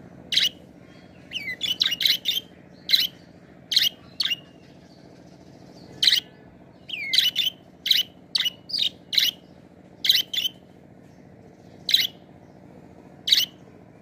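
Budgerigars calling: a string of short, sharp chirps, some in quick runs of three or four, a few sweeping down in pitch. A low steady hum lies underneath.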